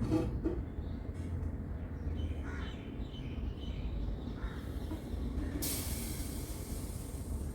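A crow cawing near the start, with fainter calls a couple of seconds later, over a steady low rumble; near the end a hiss of about two seconds.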